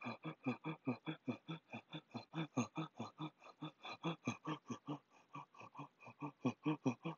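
A person's voice giving quick, rhythmic moaning grunts, about five a second, each short and falling slightly in pitch.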